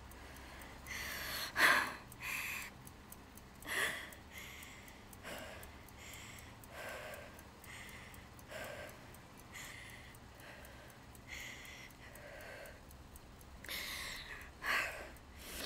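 A heavily pregnant woman breathing hard, puffing out through pursed lips about once a second, as with belly pain. A few sharper, louder gasping breaths come about two and four seconds in and near the end.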